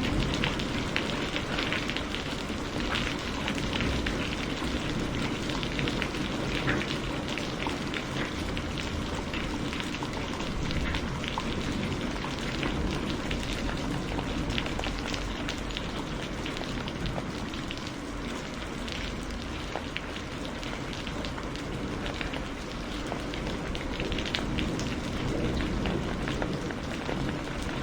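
Heavy rain falling steadily, a dense hiss of drops landing on surfaces with many small drop ticks through it.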